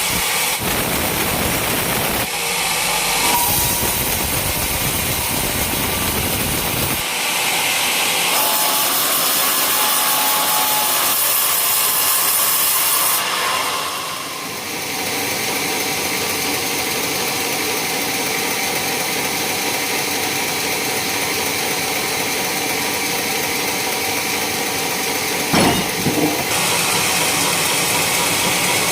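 Sawmill saw running and cutting through an old coconut palm trunk: a loud, continuous noise whose tone shifts several times as the cut goes on, with a short knock a few seconds before the end.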